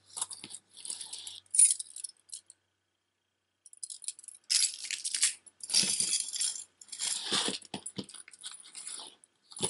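Silver-tone metal swirl-link necklace jangling and clinking as it is handled and lifted, with hands brushing the tabletop. A few scattered clinks come first, then denser clattering from about halfway through.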